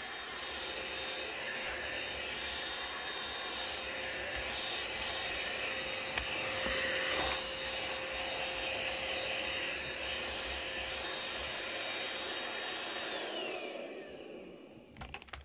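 Vacuum cleaner running with a steady motor whine, briefly louder about halfway through, then switched off near the end, its motor winding down with a falling whine.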